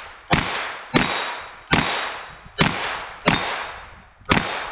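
Six .40 S&W shots (Fiocchi 170-grain FMJ) fired from a Ruger PC40 carbine, a bit under a second apart, each followed by the ringing clang of the AR-500 steel plate being hit.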